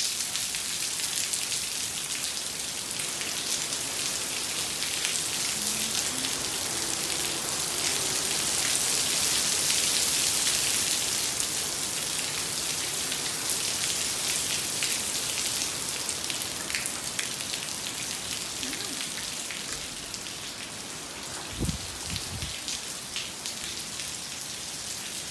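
Heavy rain pouring down as a steady hiss, heaviest about ten seconds in and slowly easing toward the end. A few dull low thumps sound near the end.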